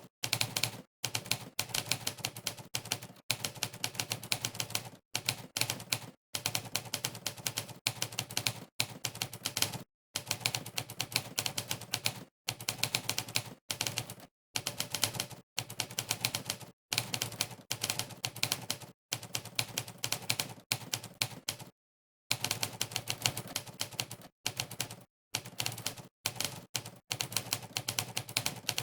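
Simulated typewriter keystroke sound effect from a typing-test website, played with each key press: fast runs of clacking keystrokes broken by short gaps of dead silence between bursts of typing.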